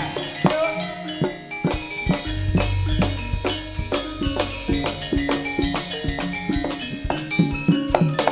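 Live jaranan horse-dance accompaniment: drums beat a fast, busy rhythm over ringing gong-chime tones. A deep low tone swells in about two seconds in and holds for a few seconds.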